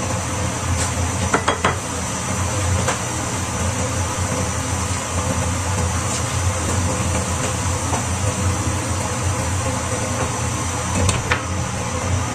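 Napa cabbage sizzling in a frying pan over a gas burner, under a steady hum. A few quick knocks of a wooden spatula on the pan come about a second and a half in, and a knock near the end as a glass lid goes on.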